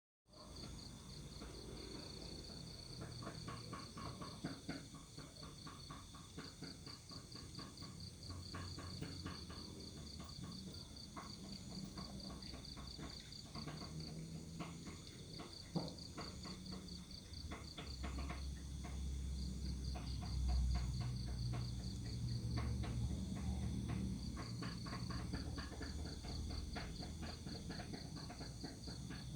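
Insects chirping in a steady, fast-pulsing high trill, with a low rumble that swells about two-thirds of the way through.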